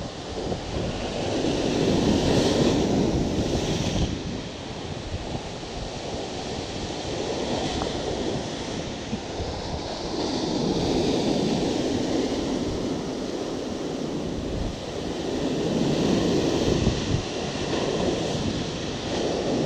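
Rough sea surf breaking and churning against rocks below, rising and falling in three big surges.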